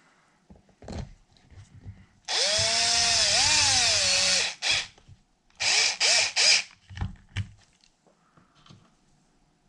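Power drill driving bead-lock screws into a 1/5-scale RC truck wheel: one run of about two seconds with the motor pitch dipping and recovering, then a few short trigger pulses. Light clicks and knocks of handling before and after.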